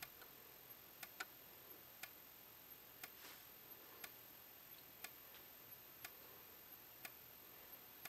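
Faint sharp clicks about once a second from the xenon strobe of an Edwards Integrity 757 speaker/strobe firing, with a fainter tick between most of them.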